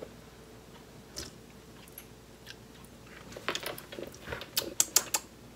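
Person tasting sauce off a spoon: after a quiet start, a quick run of wet lip smacks and mouth clicks begins about three and a half seconds in.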